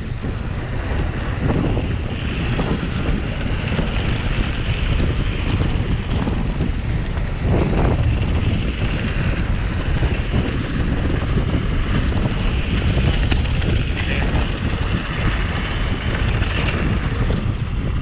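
Wind buffeting the microphone of a camera on a mountain bike ridden fast downhill: a loud, steady rushing rumble.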